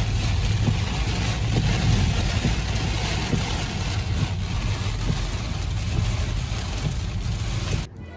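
Heavy rain falling on a moving car, heard from inside the cabin over the steady low rumble of tyres on the wet highway. It cuts off abruptly near the end.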